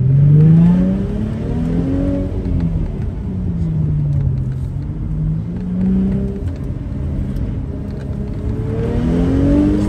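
A car engine is heard from the car itself during an autocross run, revving up and easing off repeatedly as the driver accelerates and lifts between cones, over a steady low rumble of road noise. The pitch climbs sharply at the start, sinks through the middle, then climbs again about six seconds in and near the end.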